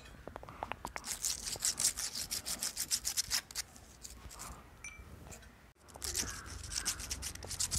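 Lotus seed rubbed back and forth on sandpaper in quick scraping strokes, wearing through its hard shell to help it sprout; the rubbing stops briefly a little past the middle, then starts again.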